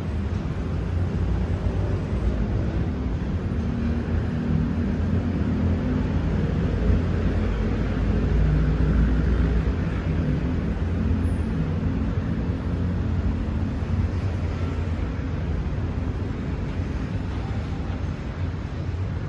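Strong wind buffeting the microphone: a steady low rumble that swells somewhat midway.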